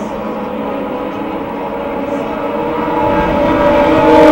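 Open-wheel race car's engine at high, steady revs, growing steadily louder as the car approaches on the oval; near the end the pitch starts to fall as it comes past.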